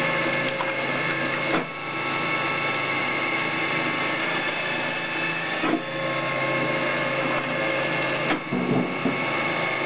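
Electric-hydraulic firewood processor running in full-auto: its electric motor and hydraulic pump give a steady machine whine with several held tones. Sharp knocks from the working cycle come about a second and a half in and again about four seconds later, then a short cluster of knocks and clatters near the end.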